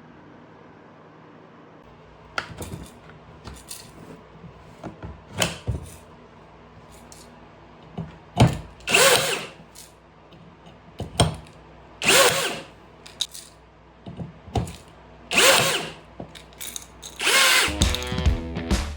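Parkside PABNSG 20-Li A1 cordless blind-rivet gun running its motor in short bursts of about a second, several times, with clicks and handling knocks between as rivets are set. Music comes in near the end.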